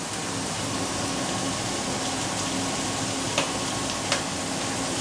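Shredded pork and vegetables sizzling steadily in a wok as they are stir-fried with a wooden spatula, with two sharp knocks about three and a half and four seconds in.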